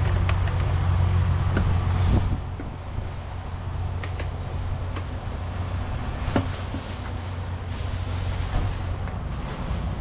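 Semi truck's diesel engine idling, a steady low hum that drops in level about two seconds in, with a few light clicks and knocks.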